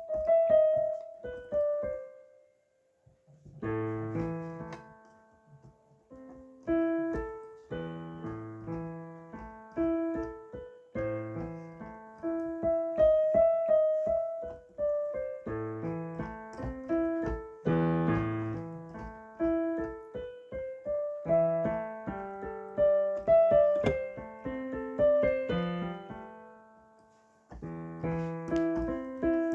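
A piano piece: a melody over chords and low bass notes, broken off briefly about two seconds in and again near the end.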